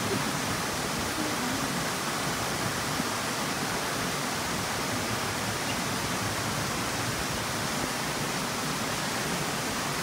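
Steady rain falling, an even hiss that does not let up.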